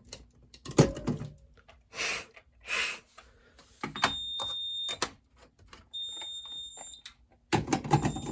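High-pitched electronic fire alarm beep, on for about a second at a time, sounding twice and starting again near the end. Before it come a sharp click and two short rushing sounds, and the end is joined by louder clattering.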